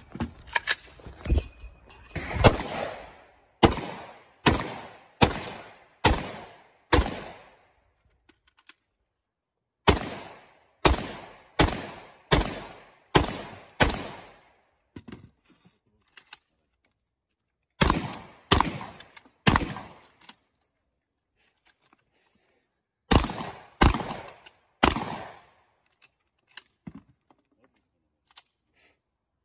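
Strings of rifle gunshots from an AR-style rifle, five to seven shots at a time at about one a second, with a few seconds' pause between strings. Faint clicks and clatter sound in the gaps.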